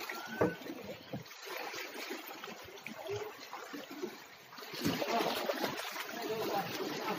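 Water splashing and trickling in an uneven, sloshing way, louder from about five seconds in.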